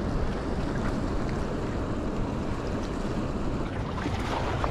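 Steady rushing outdoor noise of wind on the microphone and water washing against shore rocks.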